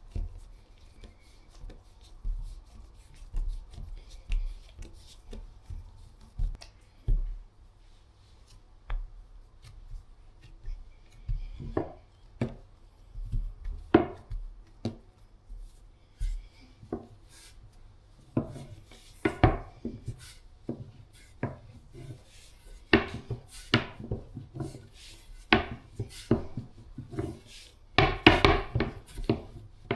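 Kitchen work for dumplings: irregular knocks, taps and scrapes of utensils on a wooden board and bowl. They are sparse at first and grow busier and louder in the last dozen seconds.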